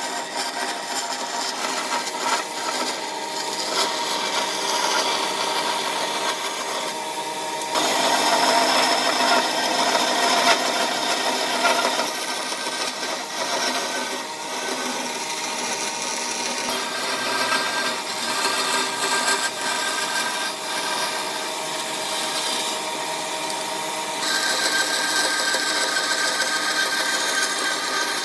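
A power tool working wood: a motor running steadily while a tool rasps against the wood. The sound changes abruptly three times.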